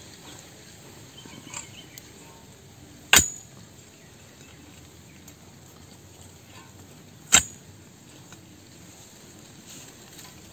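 Metal digging tool driven into stony earth while digging out yams: two sharp hits, about four seconds apart, each with a brief metallic ring.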